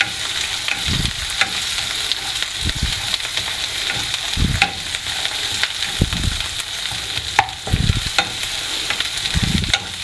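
Ground onion-and-coconut masala frying in oil in a non-stick pan, sizzling steadily while a wooden spatula stirs and scrapes through it, with soft thuds and small clicks every second or two as the spatula works the pan.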